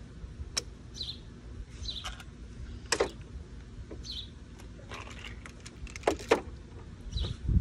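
Hard plastic toys clicking and knocking against a plastic water table, a handful of sharp knocks, the loudest about three seconds and six seconds in. A bird chirps about four times in the background.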